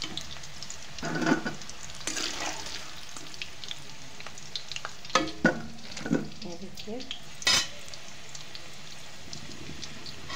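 Potato pieces frying in hot oil in a kadhai, a steady sizzle, while a metal slotted spoon scoops them out, with several sharp clanks and scrapes of the spoon against the pan and a steel plate.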